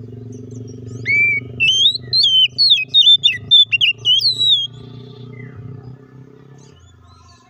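Oriental magpie-robin singing a loud, quick phrase of varied whistled notes that sweep up and down, starting about a second in and lasting some three and a half seconds. A low steady hum runs underneath and stops near the end.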